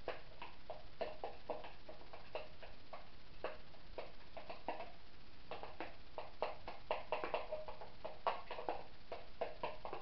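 Fork beating a raw egg in a clear plastic tub, clicking and tapping against the plastic in quick, irregular strokes that come thicker in the second half.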